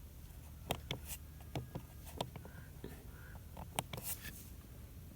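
Scattered faint clicks and taps of the buttons on a Samsung fridge's control panel being pressed, over a low steady hum; the Power Cool function does not respond.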